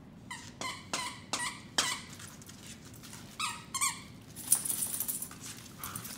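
Squeaky plush dog toy squeaking in short bursts as two corgis tug on it, about five quick squeaks in the first two seconds and two more a little later. Near the end the squeaks give way to a scuffling noise as the dogs wrestle.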